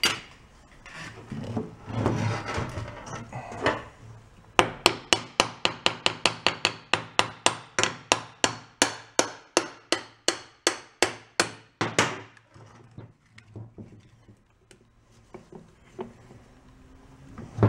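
A small hammer tapping over and over on an old engine's crankcase and oil pan, about four light blows a second for some seven seconds, to break the pan loose from its dowels. Handling and scraping of the engine parts come before and after the taps.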